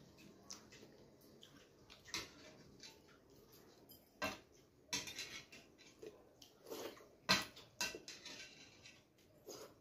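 Close-up eating sounds: irregular soft clicks and smacks from chewing and from fingers squishing rice and fish curry on a stainless steel plate.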